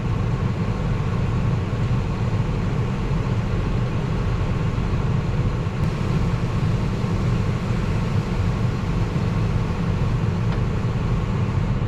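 Diesel engines of farm machinery running steadily at a constant speed, a low even rumble, as a combine unloads corn into a wagon behind a waiting tractor.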